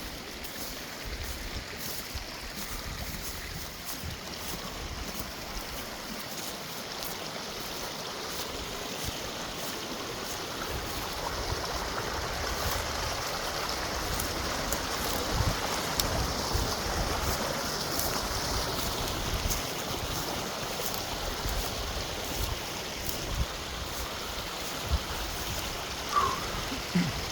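Mountain creek running steadily, its rush swelling a little midway, with scattered clicks and scrapes of footsteps and brush close by.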